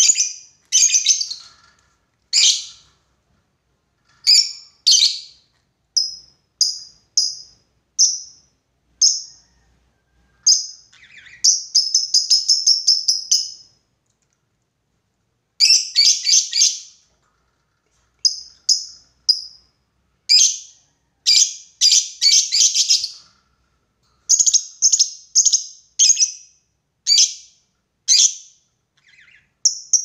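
Lovebird calling in shrill, high chirping bursts with short pauses between, breaking into longer rapid chattering runs (ngekek) several times. These are challenge calls to a rival lovebird.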